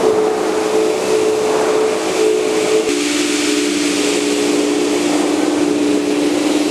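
Wooden kinetic machine running, its wheels, shafts and cords turning: a steady whirring hiss with a few held humming tones, whose pitch drops a little about three seconds in.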